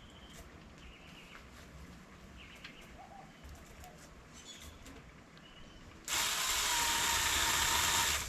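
A tree-trimming tool at work on an overhanging limb: a loud, harsh rasping starts suddenly about six seconds in, lasts a little over two seconds and stops abruptly. Before it, a few faint short bird chirps.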